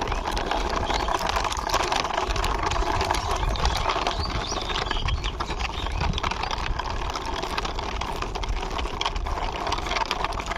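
Plastic toy quad bike pushed along by hand, its wheels rolling with a steady rattle and many small irregular clicks, over a low rumble.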